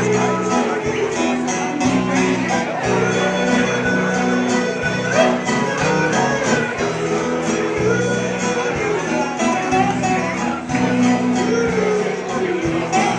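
Live country band playing a waltz: plucked guitars over a steady bass beat, with a melody line moving above.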